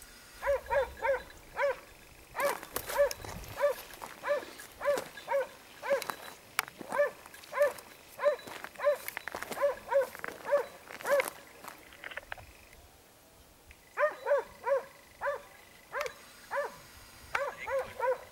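Hunting dog barking over and over in short, high barks, two or three a second, with a break of about two seconds partway through. A few sharp clicks come between the barks.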